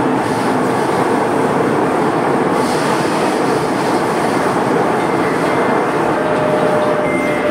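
Singapore MRT C751B train running, heard from inside the car: a steady rumble of wheels on rail and running gear. A faint steady whine comes in near the end.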